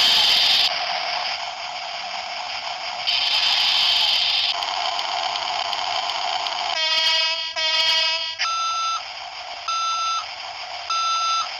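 Electronic beeps over a steady rushing hiss: two buzzy tones close together, then three short higher beeps about a second apart. The hiss swells loudest near the start and again about three seconds in.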